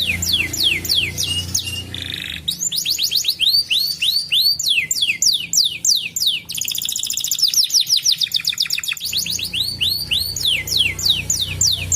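Domestic canary singing: long runs of rapidly repeated, high, downward-sweeping notes, broken in the middle by a very fast rolling trill, over a low steady hum at the start and end.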